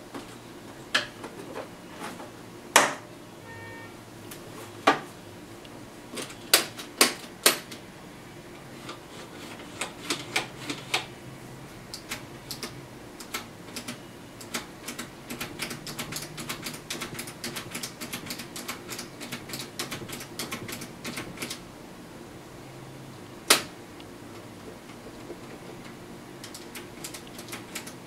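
Hard plastic clicks from the switches, buttons and knobs of a 1985 Emerson portable TV / AM-FM radio / cassette player being worked by hand: a few sharp clicks in the first eight seconds, then a fast run of small clicks for more than ten seconds, and one loud click near the end. The set is dead and gives no sound of its own.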